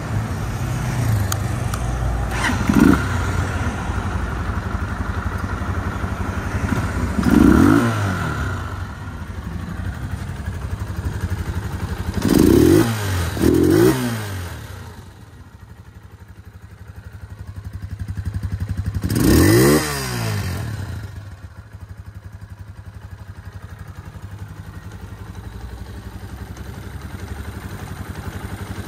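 Gilera VC 150 Full motorcycle's single-cylinder 149 cc air-cooled four-stroke engine idling, with the throttle blipped five times. Each blip is a quick rise and fall in revs, two of them in close succession about midway.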